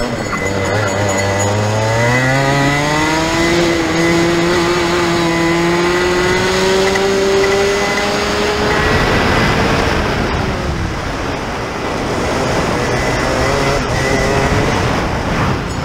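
Rotax Junior 125 cc two-stroke kart engine running under full throttle out of a slow corner, its pitch rising steadily for about eight seconds. The pitch then drops off as the throttle is lifted for the next corner, and climbs again near the end.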